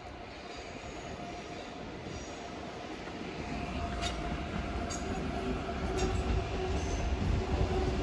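A train approaching: its rumble grows steadily louder under a steady whine. Sharp clicks come about once a second from about halfway in.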